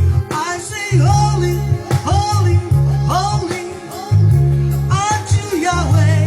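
Gospel worship music: a singing voice sliding between notes over a deep bass line that repeats in roughly one-second notes.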